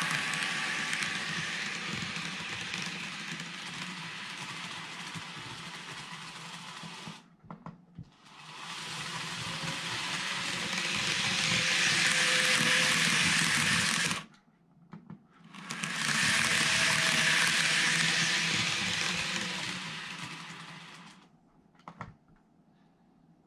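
N-gauge model of a JR 103 series commuter train running along the layout track: a steady whir of its small motor and wheels on the rails, louder as the cars pass close. The sound drops to near silence twice, about seven and fourteen seconds in, and fades away near the end as the train draws off.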